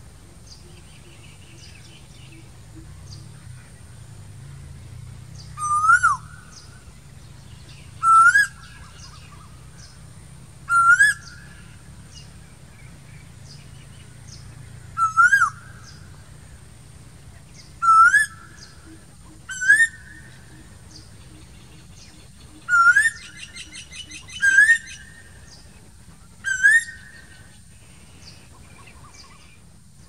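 Male Asian koel calling: nine loud rising whistled notes, each short and sliding upward, repeated every two to four seconds.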